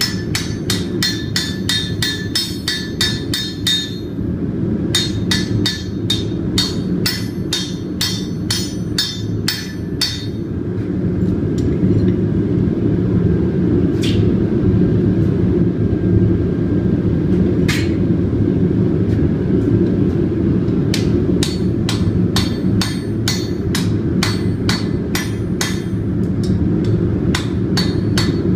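Hand hammer striking hot steel on an anvil in quick runs of blows, about three to four a second, with a pause in the middle broken by a couple of single blows. A steady low hum runs underneath.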